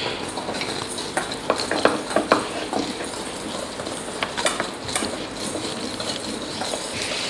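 Chapati dough being rolled out with a wooden rolling pin on a wooden board: irregular knocks and clicks of the pin and hands against the board, over a steady hiss.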